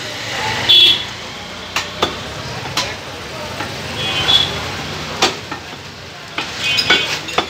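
Heavy meat cleaver chopping beef on a wooden log chopping block, with sharp chops at irregular intervals, about seven in all. Brief high ringing notes come near a second in (the loudest moment) and again around the middle and near the end. A steady low rumble sits underneath.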